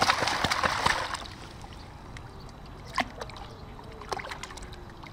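Water in a plastic wading pool splashed hard with a plastic toy shovel for about the first second, then a few single light splashes and knocks.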